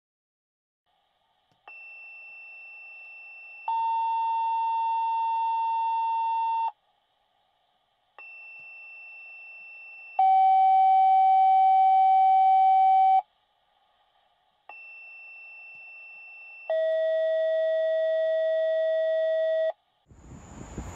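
Fire dispatch two-tone pager alert sent three times. Each set is a quieter high tone for about two seconds, followed by a louder, lower steady tone for about three seconds, with short gaps between sets. The lower tone is a little lower in each set, a separate tone pair to alert a separate pager group.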